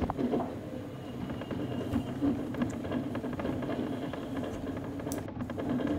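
Mobility scooter moving along a paved path: a steady low hum with light clicks from the ride.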